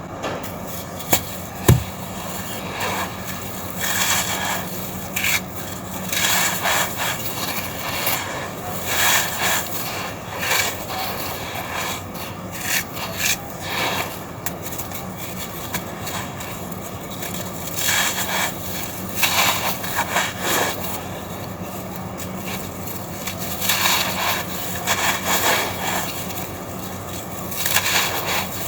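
Dry red sand-cement cylinders being crushed and crumbled, gritty crunching and rubbing in irregular bursts, with one sharp snap about two seconds in.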